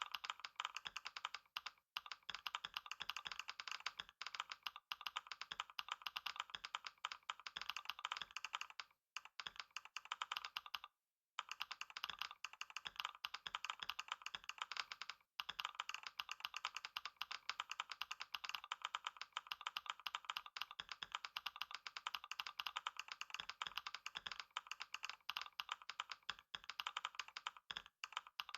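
Fast, continuous typing on a computer keyboard, a dense stream of key clicks broken by a few brief pauses, the longest about eleven seconds in.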